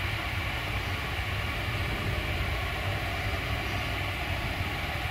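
Antonov An-124's four Progress D-18T turbofan engines running as the freighter rolls down the runway after touchdown: a steady, unbroken rush with a low rumble underneath.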